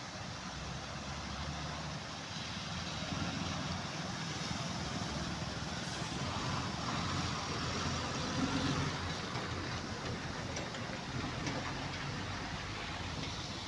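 Water rushing over a lake's overflow weir and across a flooded road, mixed with motorbike and truck engines driving through the shallow water; the sound grows louder a few seconds in and eases off near the end.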